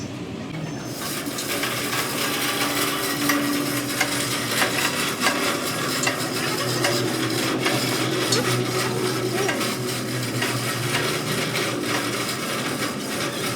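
Arc welding on a truck's rear axle spindle: a steady, dense crackle and sizzle over a low hum, starting about a second in.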